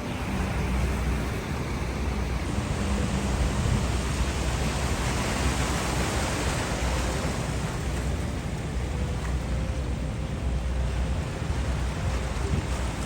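Steady rushing noise of wind and river water, with a fluctuating low rumble from wind buffeting the microphone.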